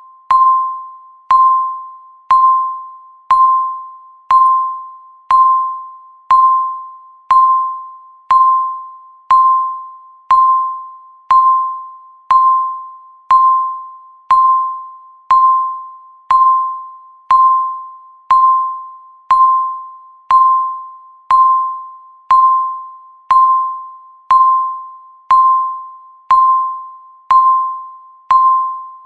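Countdown timer's tick sound: a short, single-pitched electronic tick struck once a second, each one starting sharply and fading quickly, in a perfectly even rhythm as the seconds count down.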